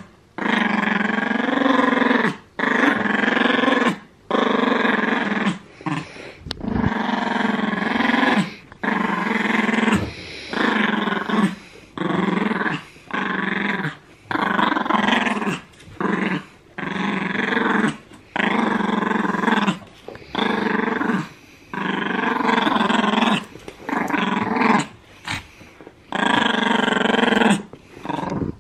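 Pomeranian play-growling while tugging on a plush toy: a long run of growls, each a second or two long, broken by short pauses for breath.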